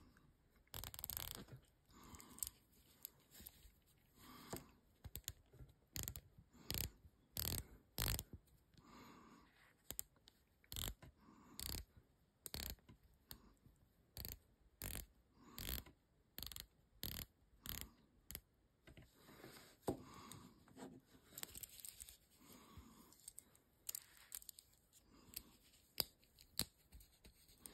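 Certina DS Action Diver's rotating dive bezel being turned, ratcheting in a series of sharp clicks, one or two a second in runs with short pauses.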